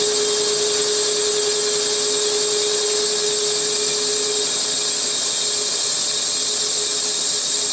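RMC V40 CNC mill boring a sleeved Excelsior motorcycle cylinder with a very light finishing cut: a steady machine hiss with a high whine. A steady low hum under it drops away about halfway through.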